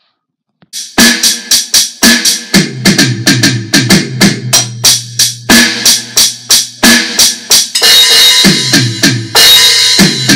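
Alesis electronic drum kit played through its sound module, a busy beat starting about a second in, with descending tom fills and crash cymbal hits in the last few seconds.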